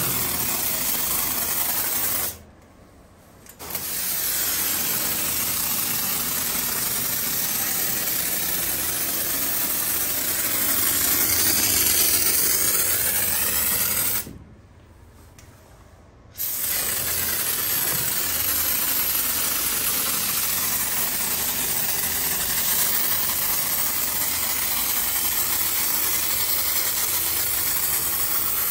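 Spray foam insulation hissing out of its pressurised can through the applicator, in three long sprays broken by two short pauses of a second or two.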